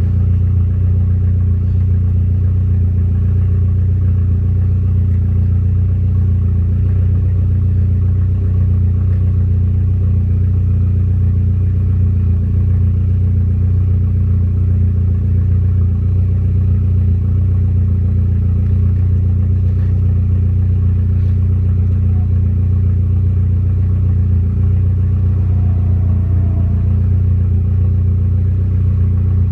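Car engine and road noise at a steady pitch while driving: a deep, unchanging drone.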